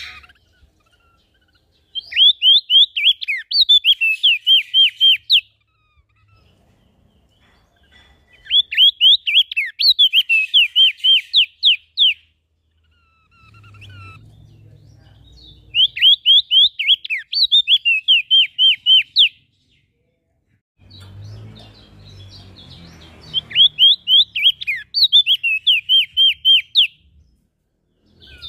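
Songbird singing four repeated phrases, each about three seconds of fast, sharp up-and-down notes at roughly four a second, with short pauses between phrases. A low rumble sits under the gaps around the middle and again near the end.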